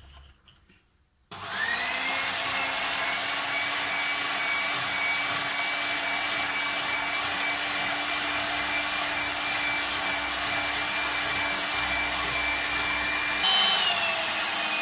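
Electric mixer switched on about a second in and running at a steady whine, beating eggs and sugar; near the end its pitch jumps up as the speed changes.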